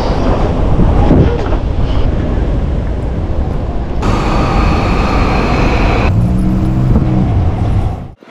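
Loud city street sound: traffic noise with a heavy low rumble. It changes abruptly about four and six seconds in, with a steady high tone in the middle stretch and a low hum near the end.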